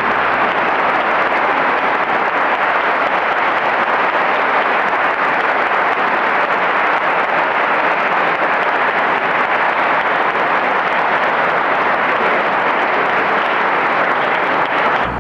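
A large audience applauding: a long, steady round of clapping.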